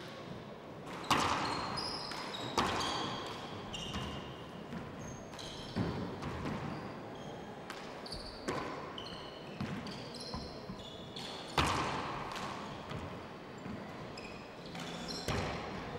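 Handball rally: a small hard rubber ball struck by hand and smacking off the court walls, about six sharp cracks a couple of seconds apart, each ringing on in the hall. Athletic shoes squeak briefly on the wooden floor between the hits.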